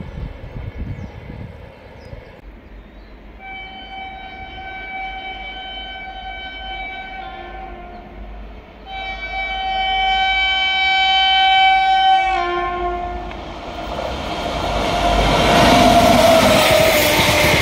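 Electric locomotive's air horn sounding two long blasts, each a few seconds, the second louder and dropping in pitch as it cuts off. From about two-thirds of the way in, the WAP-7 locomotive and its coaches pass close by with a loud rising rush.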